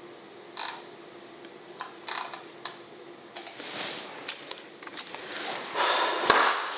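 A few light taps on laptop keys, then a louder rising swish of movement near the end.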